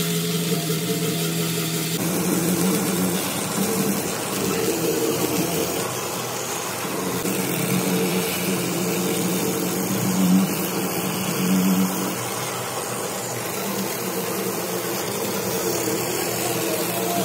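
Handheld rotary tyre buffer running with its abrasive disc pressed on the rubber inner wall of a truck tyre. It gives a steady motor hum with scratchy grinding, louder for a moment twice past the middle. The sound is the rubber being roughened around the cut to take a repair patch.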